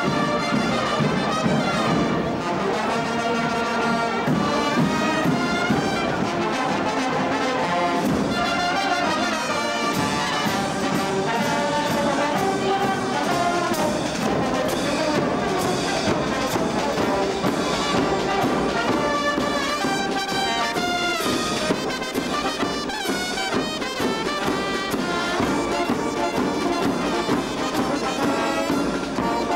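A txaranga, a Basque street brass band of trumpets, trombones, sousaphone and bass drums, playing a tune as it marches.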